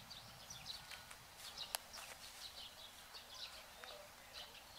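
Faint, scattered chirps of birds calling outdoors, with one sharp click a little under two seconds in.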